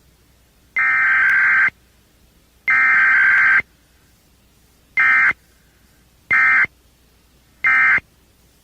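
Emergency Alert System SAME data tones: buzzing digital bursts, two long ones of about a second each followed by three short ones, the end-of-message signal that closes a test alert.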